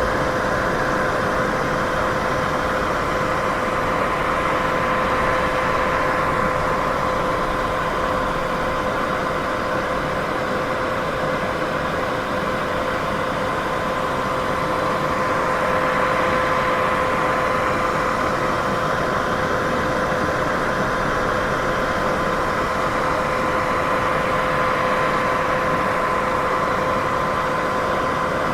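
Steady white noise for sleep: an even hiss weighted toward the middle range, with a faint steady hum at two pitches an octave apart and slow, gentle swells roughly every ten seconds.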